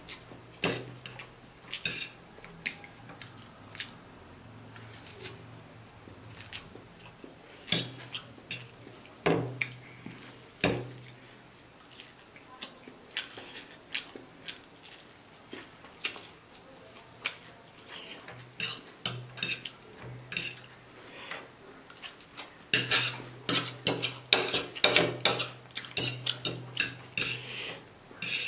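Metal fork and spoon clinking and scraping against a ceramic plate while twirling noodles, with eating sounds in between. The clinks come thick and fast over the last five seconds or so.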